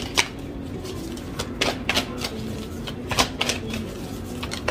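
A deck of tarot cards being shuffled by hand, with irregular crisp clicks and slaps as the cards strike each other, about two a second.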